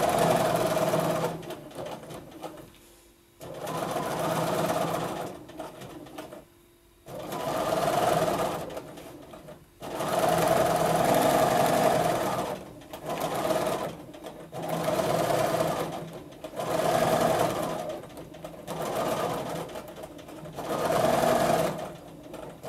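Bernina domestic sewing machine with a stitch regulator, free-motion quilting straight lines: the needle runs in repeated spurts of one to three seconds, stopping and starting again between them.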